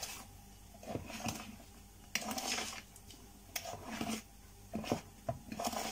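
A spoon stirring and scraping through thick sponge-cake batter in a plastic mixing bowl, in short, irregular strokes.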